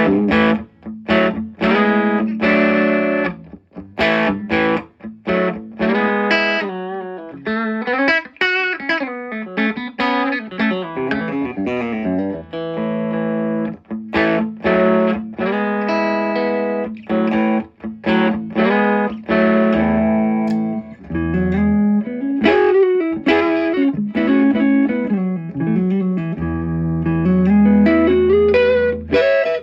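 Electric guitar, a Fender Cabronita Telecaster, played through a Fender '57 Custom Deluxe tweed (5E3) amp with its input set to 3 and tone to 8. The amp has a brand-new, not yet broken-in WGS G12Q speaker. The playing is strummed chords mixed with single-note runs.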